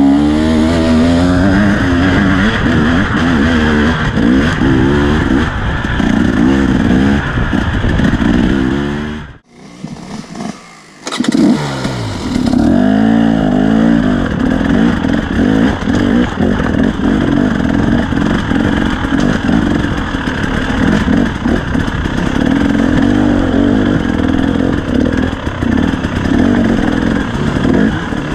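KTM dirt bike engine running under load on a trail ride, its pitch rising and falling as the throttle is worked. About nine seconds in the sound drops away for roughly two seconds, then comes back.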